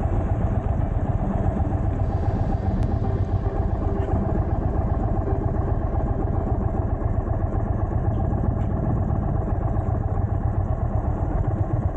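Motorcycle engine running steadily as the bike rides along, a constant low rumble with road and wind noise, heard from a camera mounted on the handlebars.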